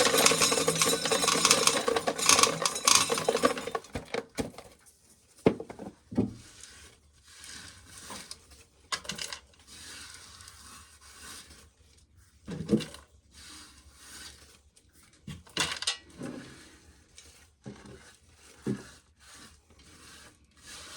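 Dry corn kernels being shelled off a small ear by hand and clinking as they drop into a container. A dense rattle for the first four seconds, then scattered single clicks and knocks.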